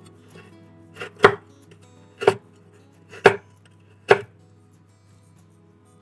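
Kitchen knife cutting through a block of palm sugar and knocking on a wooden cutting board: four chops about a second apart, stopping a little after four seconds in.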